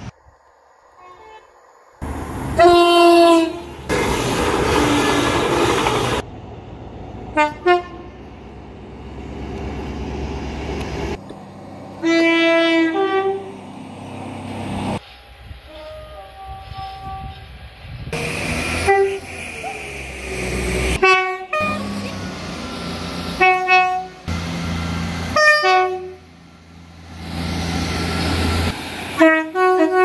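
Train horns: a series of short horn blasts from several different trains, about eight in all, with the running noise of passing trains between them.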